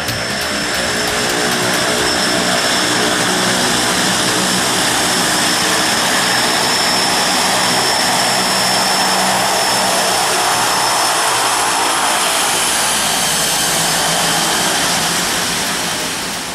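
de Havilland Canada DHC-6 Twin Otter's twin PT6A turboprop engines running on the ground: a loud, steady propeller drone with a fixed high whine on top. It swells in over the first couple of seconds and fades near the end.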